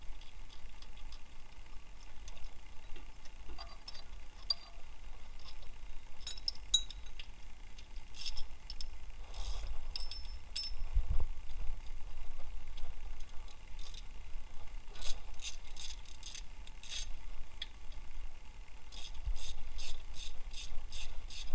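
Metal hand tools clinking and a ratchet clicking in short runs as the power steering pump's 14 mm bolts are worked loose through the pulley's access holes, with a steady run of clicks at about three a second near the end.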